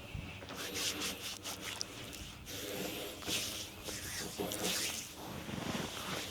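Hands rubbing and stroking over bare skin in a body massage, a run of irregular swishing strokes about one or two a second.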